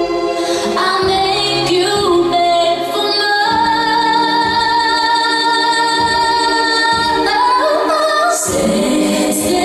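Pop song with a woman singing long held notes over a steady low drum beat.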